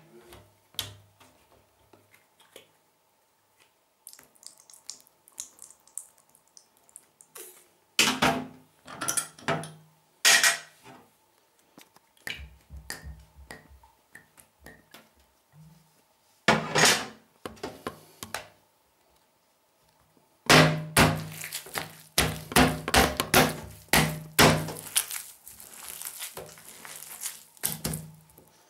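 Scattered knocks and short squelching bursts on a tabletop, then, starting about two-thirds of the way through, a fast, loud run of wet slaps and thumps as a hand smashes a sauce-covered sandwich against the table.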